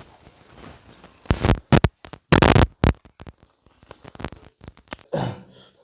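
Close-miked eating of fish curry: two loud, crackly bursts of slurping and chewing, about a second and a half in and again near two and a half seconds, among smaller wet clicks, distorted by a loose microphone.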